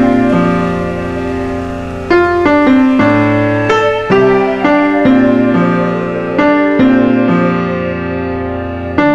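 Background piano music: single notes and chords struck and left to ring.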